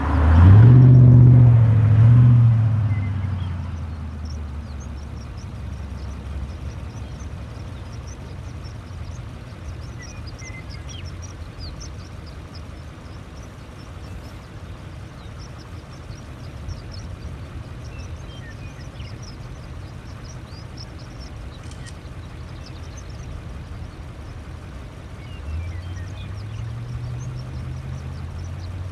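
A motor vehicle passes close by with a loud low engine rumble in the first few seconds, then fades. A steady low rumble follows, with faint high chirping throughout. A low engine hum comes back near the end.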